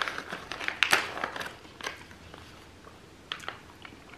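Crackly clicks from a snack bag being handled and caramel popcorn being picked out and eaten, densest in the first two seconds, with a few more near the end.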